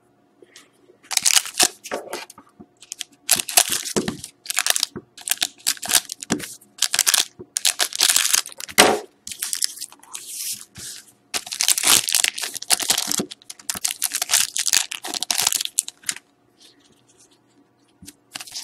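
A hockey trading-card pack's wrapper being torn open and crinkled in a series of short, sharp crackling bursts, then quiet near the end.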